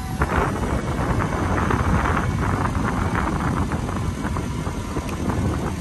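1993 Ford Mustang convertible's power top motor running as the soft top folds back, over the car's four-cylinder engine idling.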